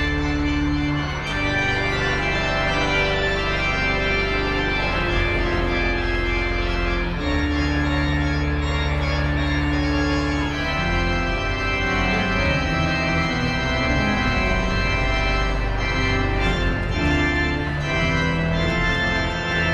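Organ played from a console: slow, sustained chords over long held bass notes, the harmony changing every few seconds.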